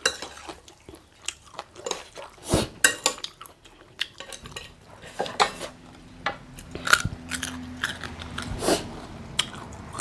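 A fork and chopsticks clicking and scraping against a plate of noodle salad, with chewing in between.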